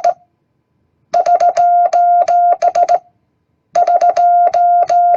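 Morse code keyer sidetone beeping out the SOS prosign run together as one character: three short beeps, three long, three short, with no gaps between the letters. It is sent twice, about a second apart, after the tail of an earlier sending at the very start, with a sharp click at each beep.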